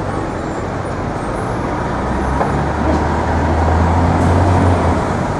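City street traffic noise, with a low engine rumble from heavy vehicles that swells in the second half.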